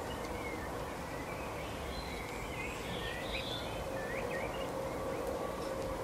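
Steady low rumble of outdoor background noise with a faint steady hum, and a run of quick, high bird chirps and twitters in the middle.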